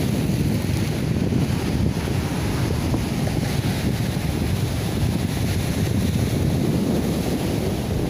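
Wind buffeting the microphone over the steady wash of rough surf breaking on the shore.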